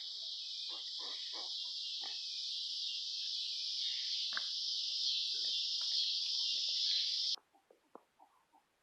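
Steady, high, buzzing chorus of insects with faint short squeals and grunts from baby mini pigs scattered through it; everything cuts off suddenly near the end.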